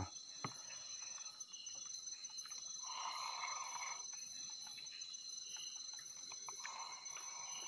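Crickets and other night insects trilling steadily in two high, continuous tones, with a faint click about half a second in and a couple of soft rustles of clothing.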